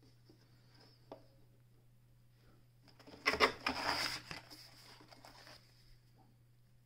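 A paper instruction booklet rustling and scraping against wood as it is pulled out of a wooden compartment in a sewing machine case. The burst lasts about a second and a half, starting about three seconds in. A single light knock comes about a second in.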